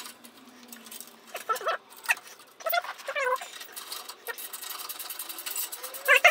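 A socket ratchet clicking rapidly as the clamp bolt of a motorcycle crash bar is tightened, after a few knocks and scrapes of the tool and the metal bar.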